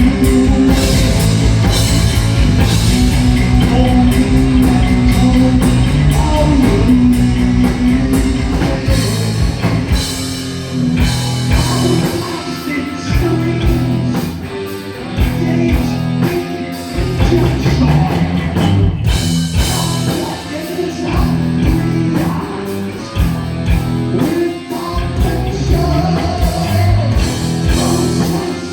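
Live heavy metal band playing: distorted electric guitars, bass and drum kit with sung vocals, loud and continuous, as heard from the crowd.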